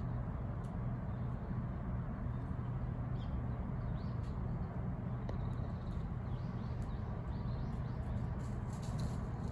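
Steady low outdoor background rumble, with a few faint high-pitched calls and light clicks now and then.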